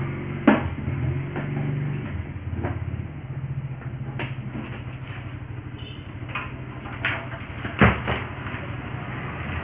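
A steady low hum comes from the speaker test rig, an amplifier wired to 6-inch speaker drivers. Several sharp clicks or pops sound as the test leads are handled, the loudest about half a second in and again near the end.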